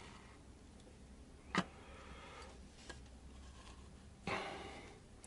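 A glass jar and an upturned bottle knocking and grinding together as they are fitted and twisted into one: a sharp click about a second and a half in, a light tick near three seconds, and a short scraping knock a little past four seconds that fades out.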